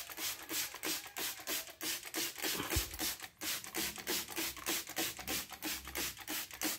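Engine bay being scrubbed by hand, quick back-and-forth rubbing strokes at about four to five a second, as the grime is worked off during detailing.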